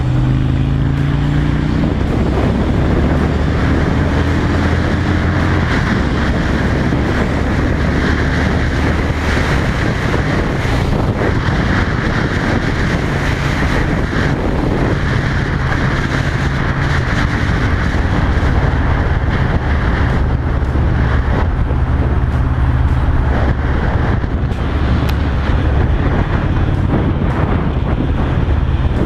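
Honda Shadow 750 V-twin running under way through a new loud aftermarket exhaust with a fishtail tip. The steady engine note sits under wind rushing over the microphone on the moving bike.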